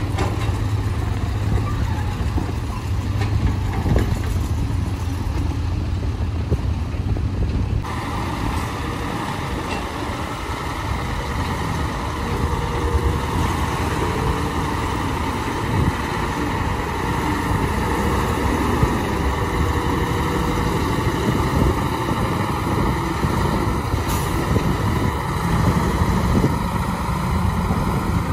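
Diesel engines of dump trucks and excavators running steadily as they work a mud pit. The sound changes abruptly about eight seconds in, from a low hum to a fuller engine noise.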